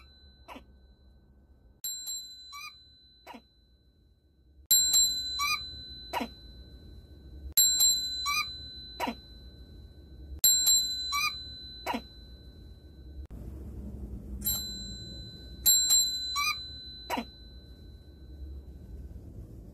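Mobile phone ringtone playing over and over: a bright bell-like chime, a quick run of rising chirps and a falling swoop, repeating about every three seconds. It gets louder about five seconds in.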